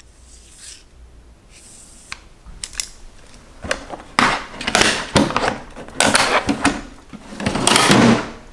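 Steel drawers of a Kennedy machinist's toolbox and the tools in them being handled: a run of clicks, knocks and sliding scrapes that starts about halfway in, after a quiet opening.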